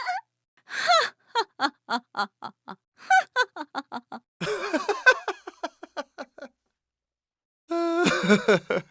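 Comic laughter sound effects: several runs of short, pitched 'ha-ha' pulses, about four a second, one after another. After a pause of about a second comes a short, held, whiny vocal sound near the end.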